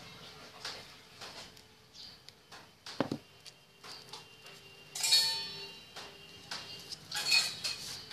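Small handling clicks and rustles, a sharp knock about three seconds in, then two louder clattering clinks with a brief metallic ring, around five and seven seconds.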